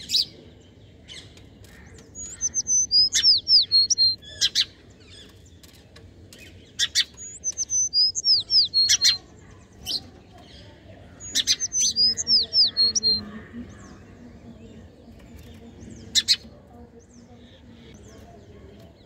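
Songbird singing a short phrase of high whistled notes that slide downward, repeated three times, with scattered sharp clicks between the phrases.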